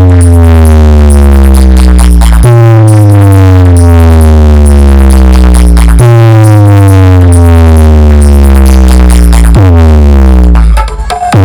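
A DJ sound system plays electronic bass test music very loud. Long synth tones slide down in pitch over heavy deep bass and restart about every three and a half seconds, turning choppy near the end.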